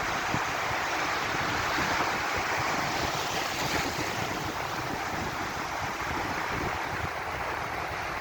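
Sea surf washing steadily onto a beach, swelling a little about two seconds in, with wind buffeting the microphone.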